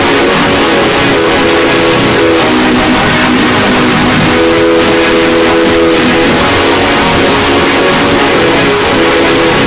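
Deliberately overdriven electronic sound effect: very loud, distorted hiss throughout, with a held chord of several tones that sounds three times, for the first couple of seconds, briefly in the middle, and again near the end.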